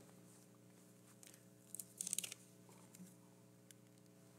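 Near silence over a faint steady hum, broken by soft rustles and small clicks from hands handling things close to the pulpit microphone, with the busiest cluster about two seconds in.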